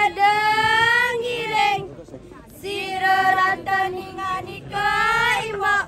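A high female voice singing a Balinese dance-drama chant in long held notes that bend and waver, in several phrases separated by short pauses.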